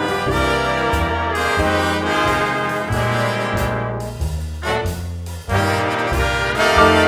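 Instrumental background music in a jazz style, led by brass horns over a moving bass line.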